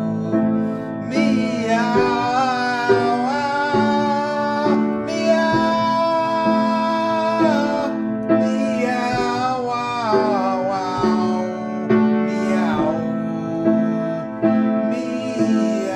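A man singing long held notes to his own piano accompaniment on a Kohler & Campbell grand piano.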